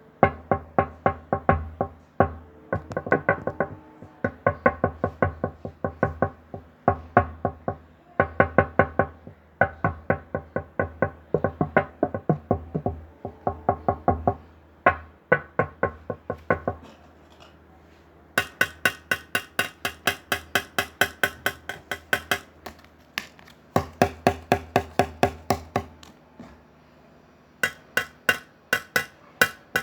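Knocking on glass: runs of sharp, ringing knocks, about four a second, pausing briefly past the middle and again near the end.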